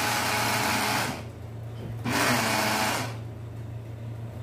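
Electric mixer grinder (mixie) grinding dampened oats into flour in its large jar, run in short pulses. It runs until about a second in, stops, and runs again for about a second before stopping once more.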